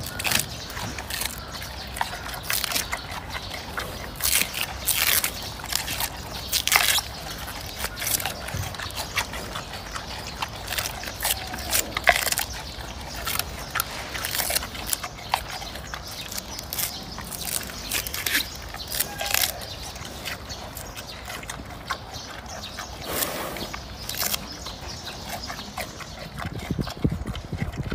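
Giant panda chewing and crunching bamboo shoots: irregular wet crunches and snaps, several a second.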